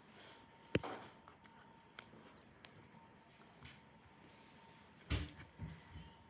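Faint handling noises: a sharp click about a second in, then a short knock near the end followed by two or three softer knocks.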